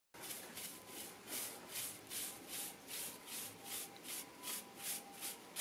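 Long-handled broom sweeping over cracked, crumbling concrete, brushing out loose grit and gravel: a rhythmic scratchy hiss at about three strokes a second.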